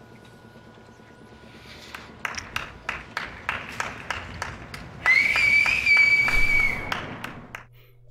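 Hands clapping steadily, about four claps a second, starting about two seconds in; about halfway through a loud, shrill whistle joins and holds for nearly two seconds, a cheer for a kiss.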